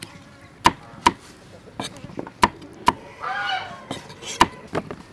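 Knife slicing bell peppers on a round wooden chopping board: irregular sharp knocks of the blade striking the board, several in pairs about half a second apart. About three seconds in, a brief pitched call of about half a second cuts across.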